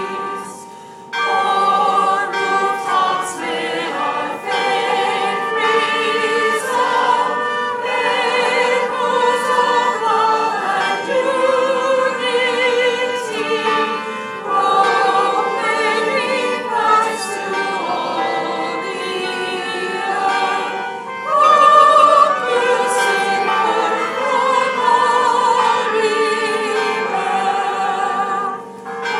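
A choir singing a sacred anthem, many voices with vibrato, breaking off briefly about a second in before carrying on.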